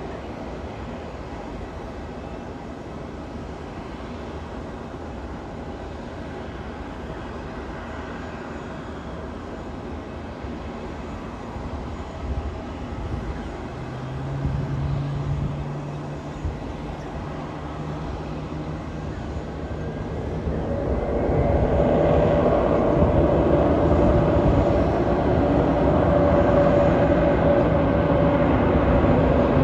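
Jet airliner engines running as a steady low rumble that grows much louder about two-thirds of the way through, with a steady whine over the roar.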